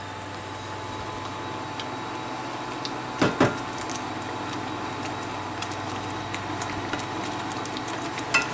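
Wooden spoon stirring veal in a thick sauce in a pan on an induction cooktop, over a steady hiss with a faint steady whine. The spoon knocks twice against the pan about three seconds in and once more near the end, with small scattered ticks in between.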